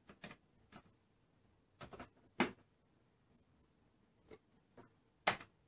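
Keys on a Commodore 64 keyboard pressed one at a time: a handful of separate, short clicks at uneven spacing, the loudest about two and a half seconds in and near the end.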